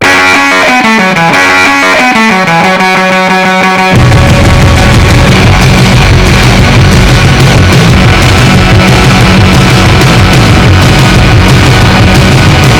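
Rock music: a guitar riff stepping down in pitch, then the full band, with drums and heavy bass, comes in about four seconds in.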